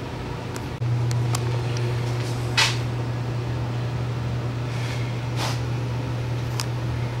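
Steady low machine hum that gets louder about a second in, with a few sharp knocks, the loudest about two and a half seconds in.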